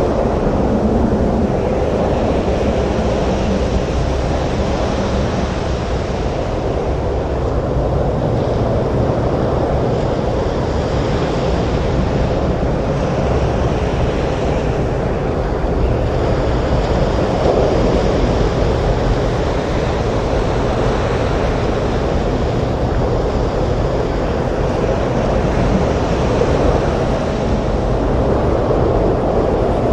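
Stormy surf breaking on a beach with strong wind over it, blending into one steady, dense rush of noise without distinct wave breaks.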